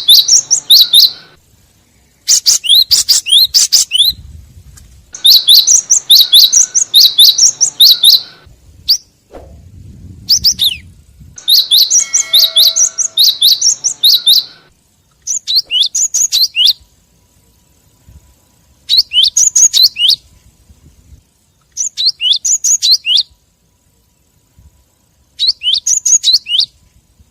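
Gelatik batu (cinereous tit) calling: repeated bursts of rapid, high chirps, each burst lasting a second or two with short pauses between, a lure recording for calling in tits.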